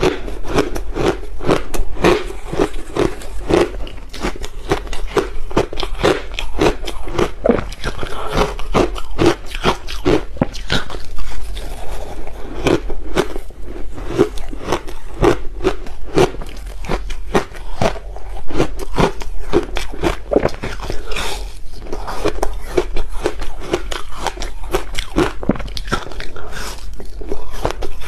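Ice being bitten and chewed: a dense, continuous run of sharp crunches.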